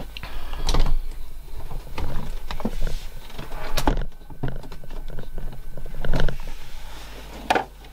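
Irregular knocks, clicks and rustling as a phone is repositioned and fabric is set under an overlocker (serger), over a faint steady hum.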